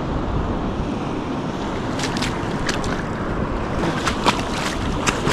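Ocean surf washing steadily with wind buffeting the microphone. From about two seconds in there is a scattering of short, sharp clicks and knocks.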